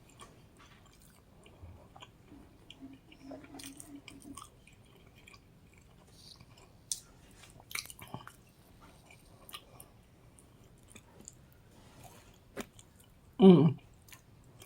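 A person chewing and biting pizza close to the microphone: faint wet smacks and small clicks. There is a low hummed voice about three seconds in, and a short, loud vocal sound near the end.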